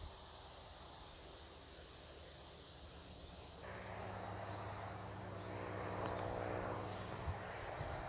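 Faint outdoor ambience: a steady, high-pitched insect-like trill over a soft hiss. A little past halfway a steady low hum joins in and the sound gets slightly louder.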